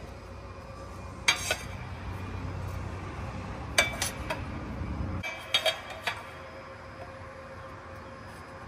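Bent steel parts clinking and clanking against metal as they are handled and set down on a perforated steel fixture table: a sharp clank about a second in, two more close together near four seconds, and a few lighter clinks between five and six seconds. Under them a low rumble cuts off about five seconds in.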